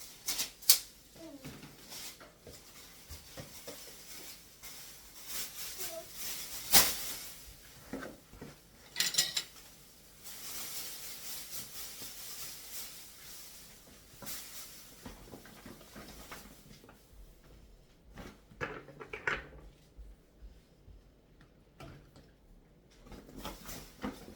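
Kitchen clatter: dishes, utensils and other items knocked and set down as things are put away, with a few sharp knocks, the loudest about a second in and again near seven seconds, and a stretch of soft rustling in the middle.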